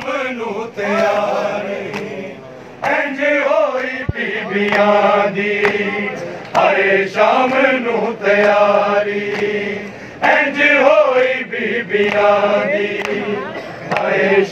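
A group of men chanting a noha, a Shia mourning lament, in sung phrases of a few seconds each with short breaks between them. Sharp hand strikes of matam (chest-beating) are heard under the chant.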